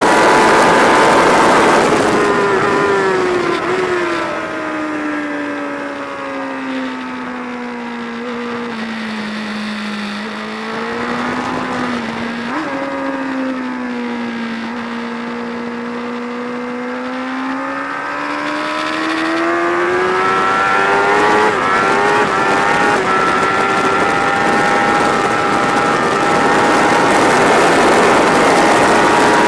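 Sports motorcycle engine heard onboard over wind rush, its revs falling steadily as the bike slows and leans through a long corner, then rising again as it accelerates out, with a couple of quick breaks in the pitch as gears change.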